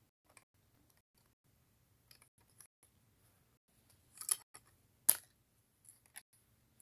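Lego bricks handled by hand: faint small plastic clicks and snaps, with two sharper clicks about four and five seconds in.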